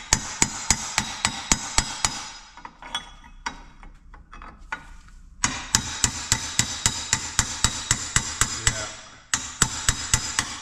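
Rapid hammer blows, metal on metal with a ringing edge, about three to four a second, driving a seized bearing out of a rusted Detroit governor housing. The blows ease to light taps for a few seconds in the middle, then resume at the same steady pace.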